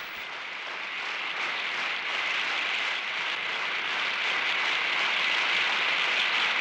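A large audience applauding, the applause swelling over the first few seconds and then holding steady.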